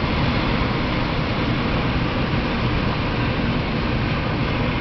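Steady, even rushing roar of a thunderstorm, with no single thunderclap standing out.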